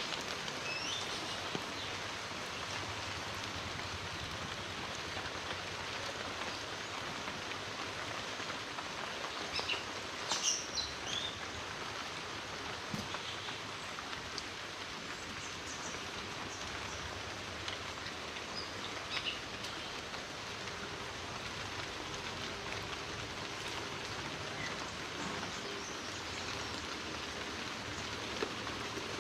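Heavy rain falling steadily, with a few brief high sounds about ten seconds in.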